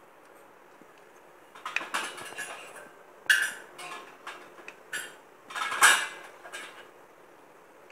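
Mustard seeds popping in hot oil in a kadai: irregular bursts of sharp crackling pops, starting about a second and a half in, the loudest near six seconds in, with seeds ticking against the metal pan. The spluttering is the sign that the oil is hot and the tempering is ready for the cumin.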